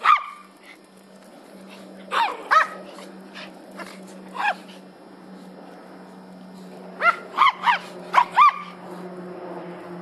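Small dogs barking in short, high-pitched yaps: one bark at the start, a pair about two seconds in, another near the middle, then a quick run of five barks near the end.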